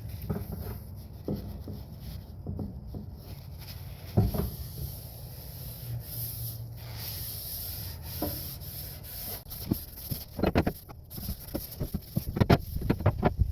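Rubbing on a wooden axe handle, with scattered light knocks, and a quick run of clicks and knocks near the end.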